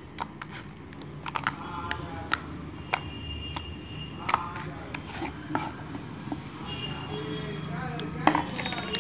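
Thick, glossy homemade slime squelching and popping as fingers press and knead it, giving a string of irregular sharp, wet clicks.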